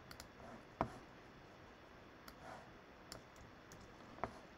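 Faint, scattered clicks of a computer mouse and keyboard, a few separate clicks spread out, the loudest about a second in and another near the end.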